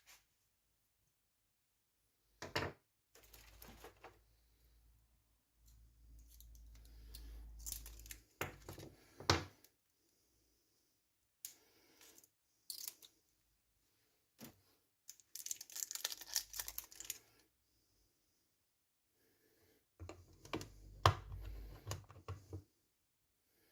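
Handling noises while unpacking: rustling and crinkling of packaging in separate bursts, with several sharp clicks and knocks.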